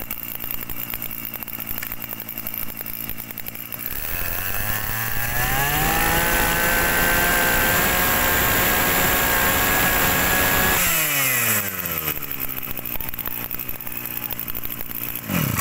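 Maruyama BigM BC268 brush cutter's 26cc two-stroke engine idling. It is revved up over about two seconds and held at high speed for about five seconds, then drops back to idle and stops right at the end.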